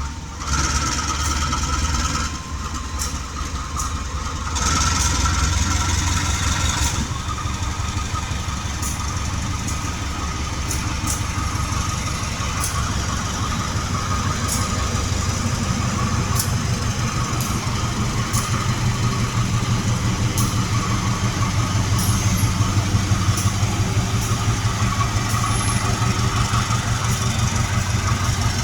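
Large diesel engine idling with a steady low throb, growing a little louder in the second half.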